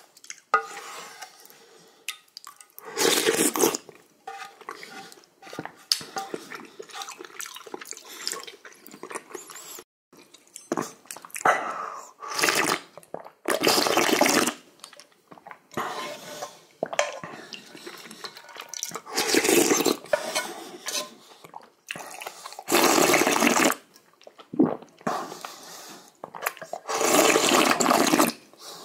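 Someone slurping hot seaweed soup (miyeok-guk) with rice off a spoon: about six loud, noisy slurps of about a second each, with quieter eating sounds in between.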